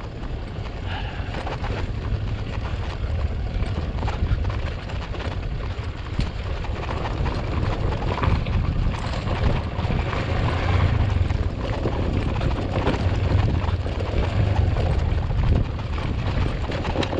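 Enduro dirt bike running as it is ridden along a rough trail, its engine sound swelling and easing, with a few scattered knocks.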